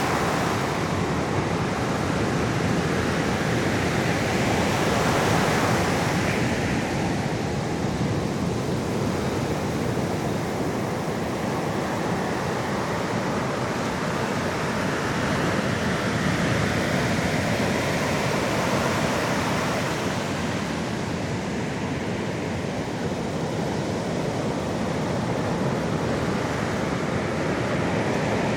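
Sea waves washing onto the shore, a continuous rushing that swells and eases slowly every several seconds.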